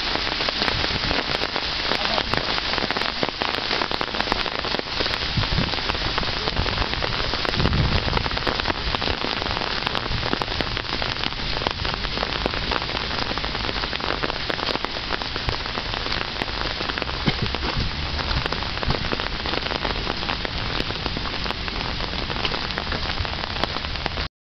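Steady rain shower falling on the ground and park benches, a dense patter of countless small drop impacts.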